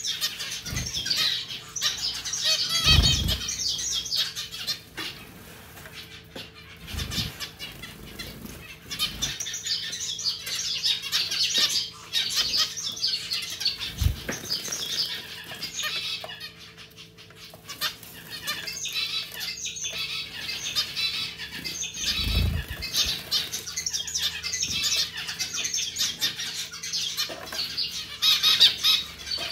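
Zebra finches bathing in a running pet water fountain: repeated bursts of splashing and wing-fluttering in the water, with a few dull thumps. The fountain's pump hums steadily underneath.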